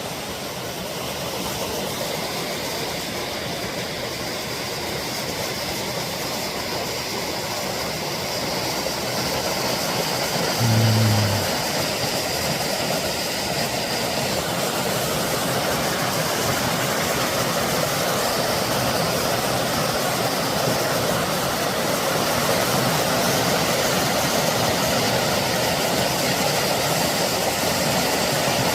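Mountain stream and waterfall water rushing as a steady noise that grows gradually louder. There is a short low hum about eleven seconds in.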